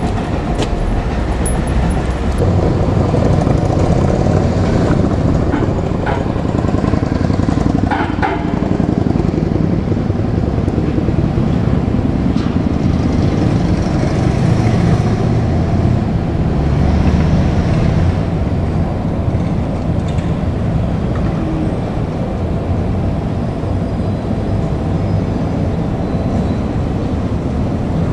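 Steady rumble of a JR Kyushu 787 series train running, with a few sharp clicks about eight seconds in.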